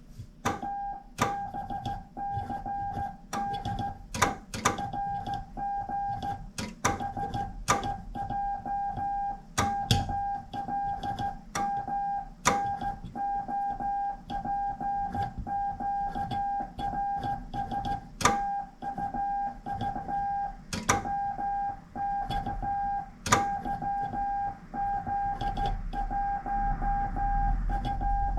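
Morse code sent by hand on a straight key: a single steady sidetone beep keyed on and off in dots and dashes, starting about half a second in. Sharp clicks from the key sound now and then over the beeping.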